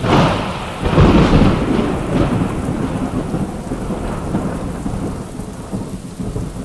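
Thunderstorm: a thunderclap at the start with a second, louder crack about a second in, then a rumble under steady heavy rain that slowly eases off.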